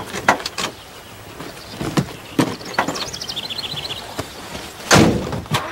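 Scattered clicks and knocks of someone getting into a van, with a bird's quick descending twitter in the middle, then a heavy van door thud near the end.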